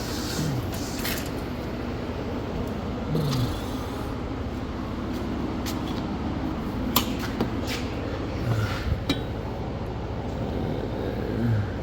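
Steady low mechanical hum with a few sharp clicks and knocks scattered through it.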